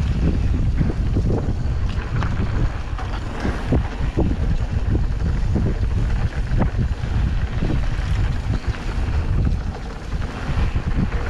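Wind buffeting the microphone of a camera riding on a mountain bike during a fast descent on a dirt singletrack, with many short clicks and knocks from the bike rattling over bumps.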